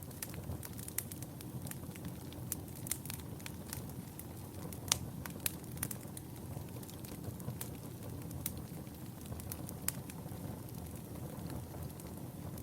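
Wood fire burning in a fireplace: a steady low rumble of the flames with irregular sharp crackles and pops, a few louder pops standing out about five and ten seconds in.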